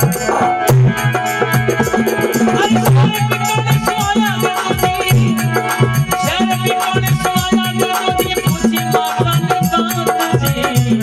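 Instrumental interlude of a Rajasthani folk bhajan: a fast, steady drum and rattle rhythm under a melodic instrument line, with no singing.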